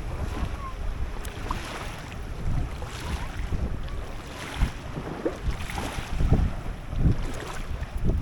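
Wind buffeting an action camera's microphone, a gusty low rumble that swells and drops, over water slapping around a small boat.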